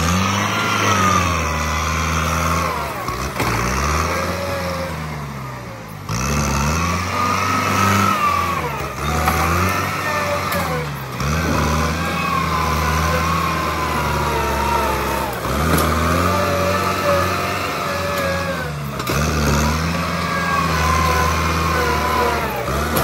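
Kubota M8540 tractor's diesel engine working under load as its front dozer blade pushes soil, the engine note dipping and then rising again every three to four seconds.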